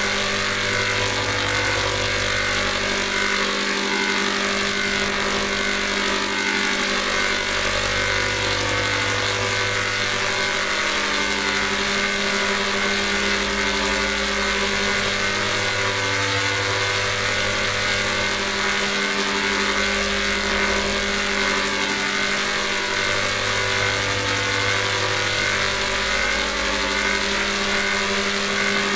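Dense, distorted electronic drone made of many steady tones stacked together, with a deep low tone that swells in for a few seconds about every eight seconds: a 'G Major'-style edited audio effect of layered, pitch-shifted copies of a clip.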